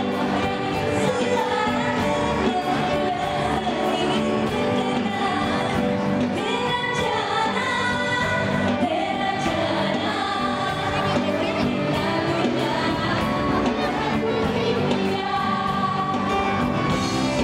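Live music with many voices singing together over a steady drum beat.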